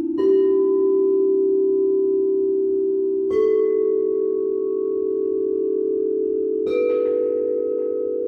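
Singing bowls ringing in a layered drone; three are struck about three seconds apart, each adding a slightly higher pure tone that sustains over the others.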